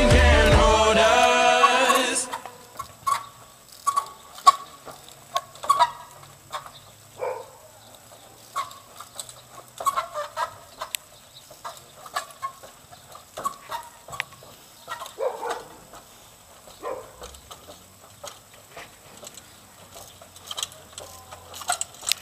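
Background music cuts off about two seconds in; then a trials bicycle hopping up wooden ramp steps, with irregular sharp knocks and clicks of the tyres landing and the frame striking the planks, and short squeaky chirps in between.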